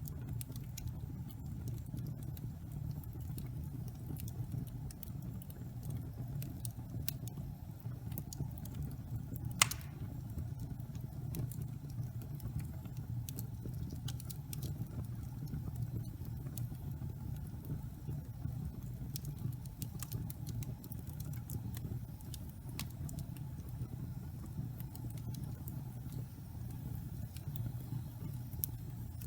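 Wood fire burning in a fireplace: a steady low rush of flames with scattered small crackles, and one sharp pop about ten seconds in.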